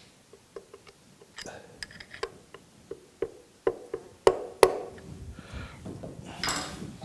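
About a dozen light metal taps from a brass-ended knocker bar against a screwdriver set on a planer knife, nudging the knife's projection in the cutterhead by thousandths; the two loudest taps come close together about four and a half seconds in. Handling and rustling noise follows as the tools are set down.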